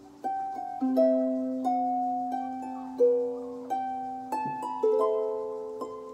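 Harp played slowly: single plucked notes of a gentle melody, each ringing on and fading, over a low note left sounding beneath.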